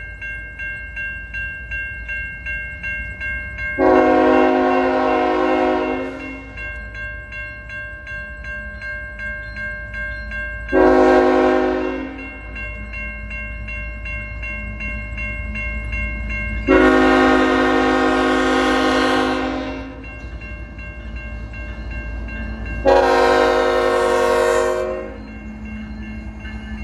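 Locomotive horn sounding four blasts, the second one short and the others long, over the low rumble of the train. Between the blasts, a quieter steady ringing pulses about twice a second.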